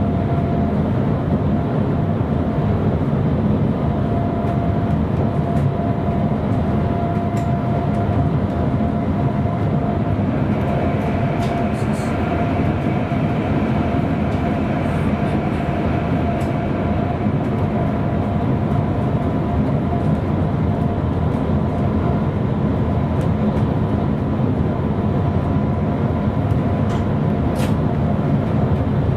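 Sprinter electric train running steadily along the track, heard from the driver's cab: a constant rumble of wheels on rails with a steady tone above it.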